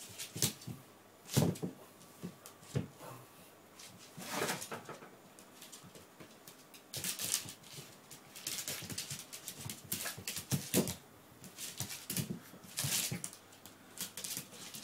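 Shih Tzu at play with a plush toy on a wooden floor: irregular bursts of scuffling and scrabbling with the dog's own small vocal noises mixed in.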